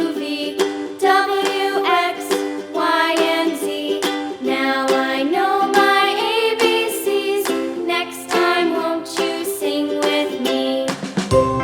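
Background music: a light, bouncy tune with plucked strings and a melody line, with bass notes entering near the end.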